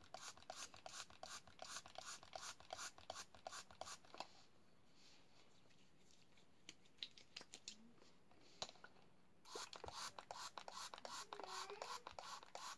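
Faint, quick back-and-forth rubbing of hands working in a hand-cleaning product, in two spells of even strokes separated by a pause of several seconds with a few small clicks.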